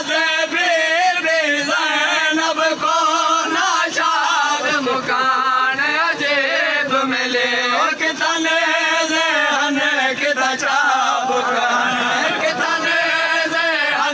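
A group of men chanting a noha together in loud, continuous unison, their voices wavering in pitch, typical of a Shia mourning association's chant.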